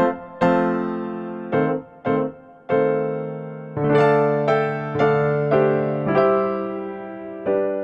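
Background music: a slow keyboard tune, piano-like notes struck one after another, about once or twice a second, each left to ring and fade.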